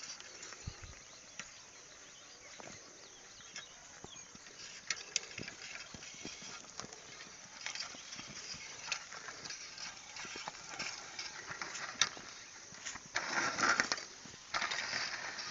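Cattle pulling a plough through a field: scattered knocks and clicks from the animals and the plough, with a louder stretch of noise lasting about a second and a half near the end.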